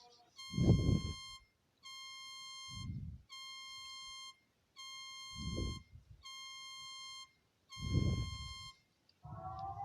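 Emergency alert tone played back from a video: six steady, high beeps, each about a second long with short gaps, with a low thud every two to three seconds. Near the end a rising, siren-like chord begins.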